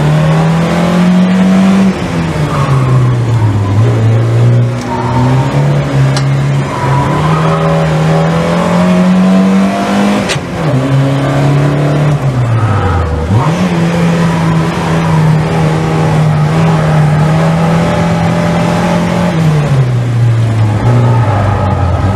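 A Volvo competition car's engine heard from inside the cabin under hard driving, its pitch climbing under acceleration and dropping sharply several times at gear changes and lifts, then holding steady at high revs. A sharp click sounds about ten seconds in.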